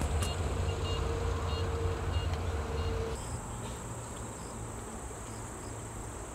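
Insects chirping in short repeated bursts over a low rumble; about three seconds in, the rumble cuts off suddenly and a steady high-pitched insect drone takes over.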